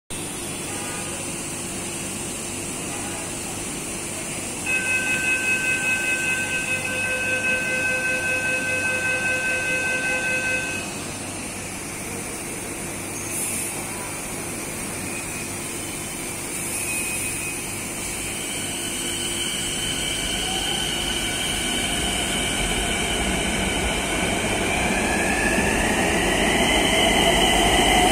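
Metro train at a platform: a loud pulsing electronic beep tone sounds for about six seconds, then the train starts off, its traction motors whining and rising in pitch as it speeds up and grows louder.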